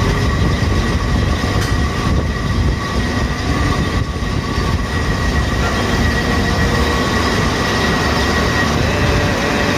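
Conveyor belt machinery running: a loud, steady rumble with a steady high-pitched whine over it.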